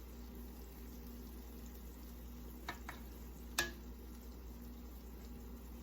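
Low steady kitchen hum with three light clicks of a utensil against cookware, two close together about halfway through and a sharper one just after.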